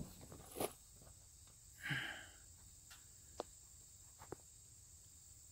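Faint handling noise from a phone held close while filming: a few light clicks, with a short soft breathy sound about two seconds in. A thin, steady high tone sits underneath.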